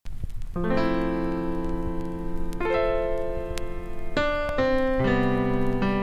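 Background keyboard music: sustained piano-like chords that begin about half a second in and change every second or two.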